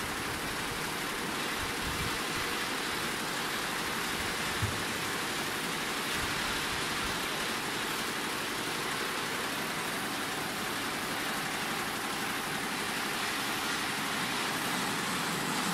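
Ten-head, nine-needle Butterfly embroidery machine stitching garments at 750 rpm: a dense, steady mechanical running noise, with one brief knock about four and a half seconds in.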